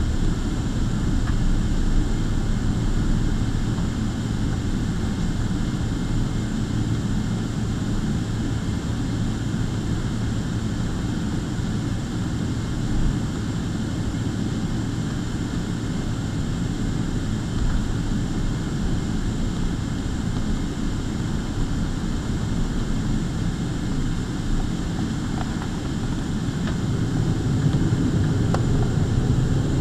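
Boeing 777-300ER's GE90 jet engines at taxi power heard from inside the cabin: a steady low rumble with a faint steady whine. The rumble grows a little louder near the end as the jet reaches the runway before its takeoff roll.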